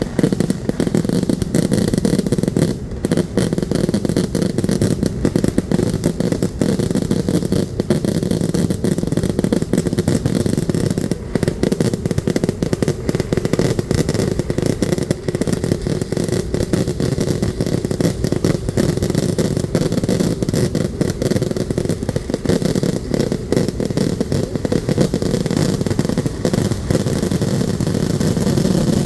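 Vedikkettu festival fireworks going off in a dense, unbroken barrage. The bangs come too fast to count and merge into one continuous din, with no pause.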